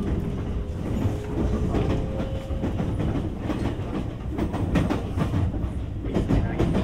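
Running sound of a JR West 225 series 5000 electric multiple unit, heard from inside the passenger car: a steady low rumble of wheels on rail. From about halfway through there is a run of clicks and clatter from the wheels passing over rail joints.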